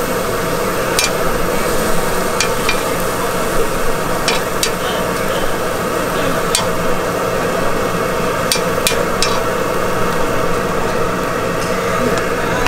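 Food sizzling on a street-stall flat-top griddle, with about ten sharp metallic clicks of spatulas tapping and scraping the hot plate at irregular moments.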